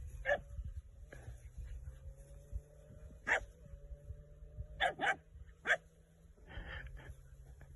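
A dog giving short, sharp barks, five or so scattered over several seconds, two of them close together in the middle, over a faint steady hum.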